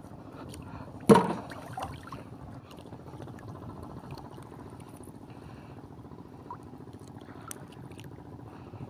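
Shallow seawater sloshing and gurgling softly as hands work through a fishing net in the water, with one brief louder sound about a second in.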